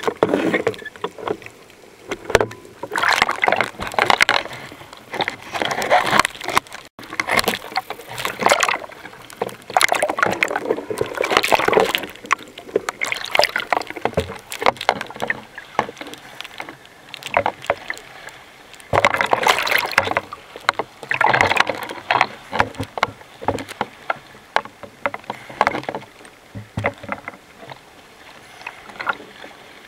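Sea water sloshing and splashing over a waterproof camera bobbing at the surface. It comes in irregular surges every couple of seconds, with many sharp clicks.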